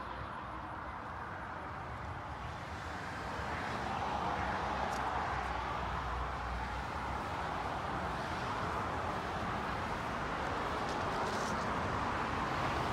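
Steady road noise from passing traffic, with tyre hiss and a low rumble, growing louder about four seconds in.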